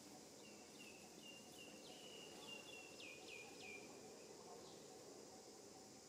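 Faint outdoor background with a bird calling: a run of about a dozen short high notes lasting some three and a half seconds, the last few starting with a sharp downward slide.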